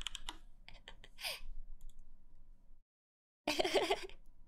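A few light clicks and soft breaths, then a short burst of a woman's giggling about three and a half seconds in.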